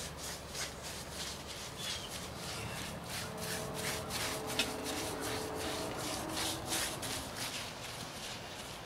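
Paintbrush scrubbing non-skid paint, which has sand in it, onto concrete steps: short scratchy strokes, about two or three a second.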